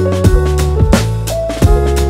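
Background music: a drum-kit beat under held instrument notes.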